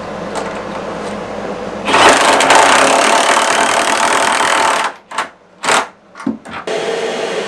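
Cordless drill/driver motor running for about three seconds, then a few short trigger bursts, as it drives a screw through a battery strap's end fitting into the floor.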